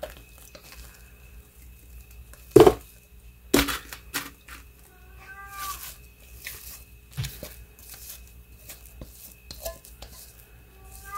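A cat meowing a few times for food, starting about five seconds in. About two and a half and three and a half seconds in there are two sharp knocks, louder than the meows, as a spatula works a metal mixing bowl over a metal baking pan.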